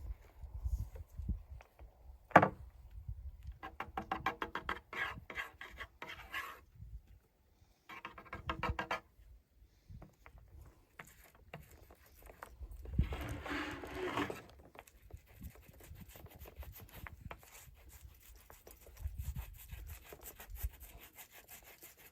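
Hand-work rubbing and scraping on a drum shell, in uneven bursts. There is a sharp knock a little over two seconds in, two stretches of fast crackling, and a louder rasping patch past the middle.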